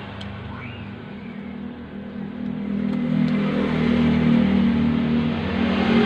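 A motor vehicle engine running with a steady low hum, getting louder about halfway through.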